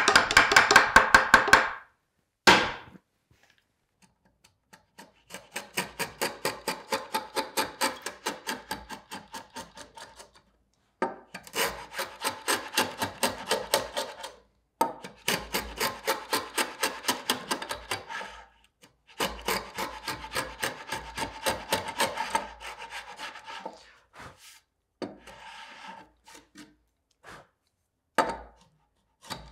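A quick run of light mallet taps on wood, then a Veritas router plane scraping across a wooden tenon in rapid back-and-forth strokes, in several runs of a few seconds each. The plane is set to finished thickness and shaves down the tenon's high spots.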